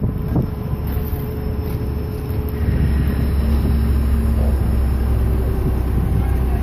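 Engine of the crane lifting the load, running with a low steady drone that grows louder and steadier about two and a half seconds in.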